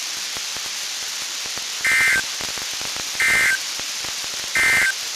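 NOAA Weather Radio SAME end-of-message data code: three identical short, buzzy digital bursts about 1.3 seconds apart over steady radio hiss. It marks the end of the weekly test message.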